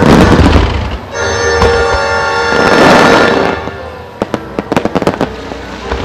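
Star mine fireworks barrage: loud bursts of shells at the start and again around three seconds in, then a quick run of sharp crackling pops from the crackling stars, with music accompanying the show.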